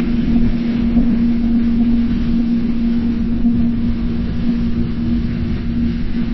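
Submarine sonar sound effect: a steady low hum over a rumbling underwater noise bed, with no distinct ping stroke. It cuts off abruptly just after the end.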